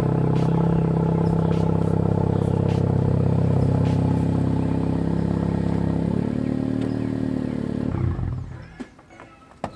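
Honda Civic hatchback's 1.5-litre turbo four-cylinder running after a cold start, its note shifting about six seconds in. The engine is switched off about eight seconds in, followed by one sharp click near the end.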